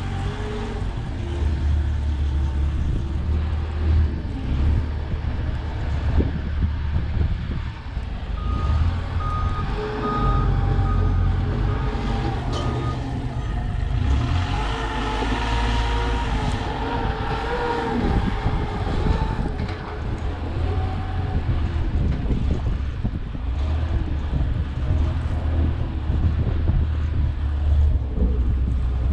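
A heavy vehicle's engine rumbling steadily, with a reversing alarm giving a series of short beeps about a third of the way in.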